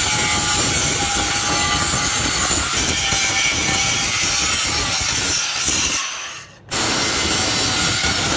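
Handheld angle grinder running with its abrasive disc pressed against a metal wheel-hub piece, grinding with a steady harsh rasp. It fades out a little after five seconds in, then comes back suddenly at full strength about a second later.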